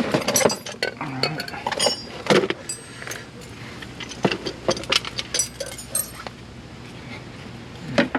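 Metal brake parts and hand tools clinking and knocking against each other, a string of sharp clinks, some with a short metallic ring, as the caliper is worked off.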